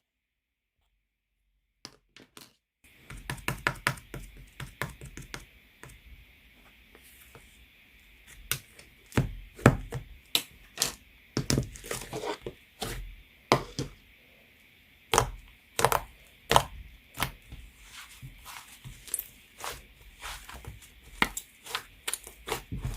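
White clay slime being squished and poked by hand, giving irregular crisp crackles and clicking pops that begin a couple of seconds in and carry on densely.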